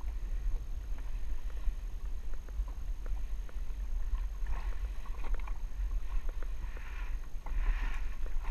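Wind buffeting the camera microphone as a steady deep rumble, with water lapping and splashing against the jet ski's hull in short hissy patches and small clicks and taps throughout.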